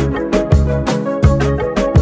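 Background music with a steady drum beat over a bass line and melody.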